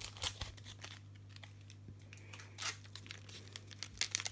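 Plastic wrapper of a cat treat stick crinkling and tearing in short, scattered rustles as it is opened, over a low steady hum.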